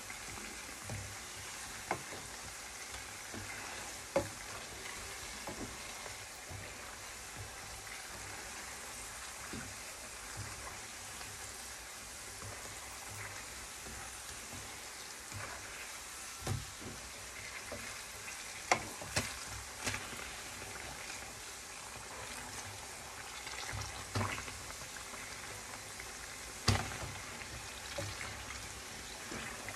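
Hot oil sizzling steadily around glutinous rice flour fritters (badua) deep-frying in a frying pan, with a few sharp pops scattered through.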